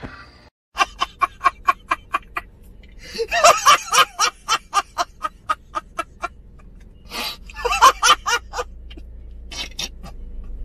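A man laughing hard and uncontrollably in three main fits of rapid, cackling ha-ha pulses, about five or six a second, with short breaths between the fits.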